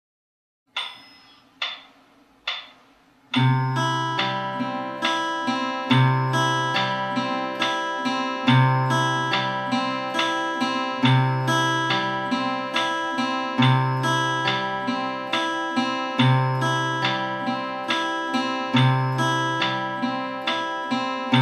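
Steel-string acoustic guitar fingerpicked in a broken-chord pattern: a bass note starts each bar, about every two and a half seconds, followed by picked treble notes. Three evenly spaced clicks come first, and the playing starts about three seconds in.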